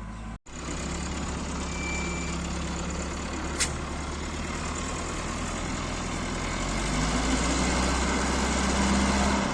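Heavy machine engine running steadily, picking up in level about seven seconds in, with one sharp click about three and a half seconds in.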